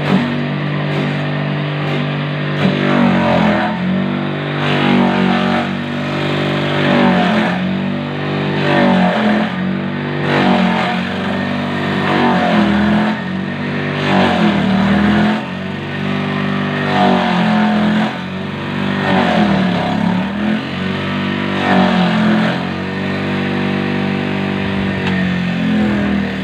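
Electric motor salvaged from a water pump, driving a homemade chopper that shreds banana stems. Its steady hum sags in pitch each time a stem is pushed in, about every two to three seconds, with a rough chopping rasp, and then recovers.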